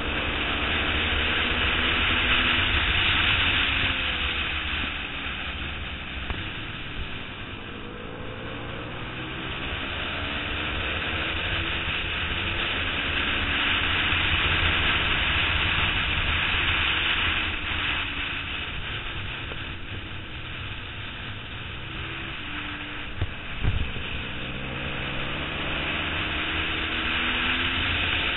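Suzuki SV650's V-twin engine at racing speed, its revs rising and falling over and over as it is worked up through the gears and eased back into corners, under a heavy rush of wind on the microphone. A short double knock comes late on.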